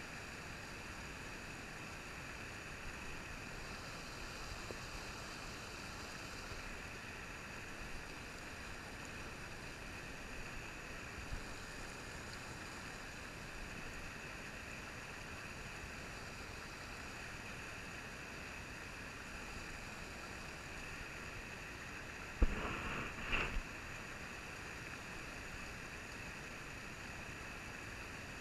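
Steady rushing of a trout stream's riffle as it pours over rock. A little over three-quarters of the way through there is a sharp knock close to the microphone, then about a second of further knocks.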